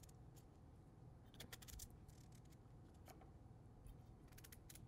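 Near silence with a few faint, short clicks of a small kitchen knife cutting into a fennel bulb.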